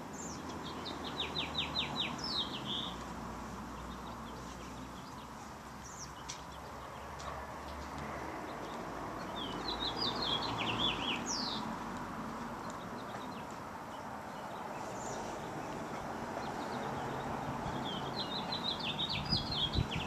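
A songbird singing three short bouts of quick, high chirping notes, each about two seconds long and roughly eight seconds apart, over steady low background noise.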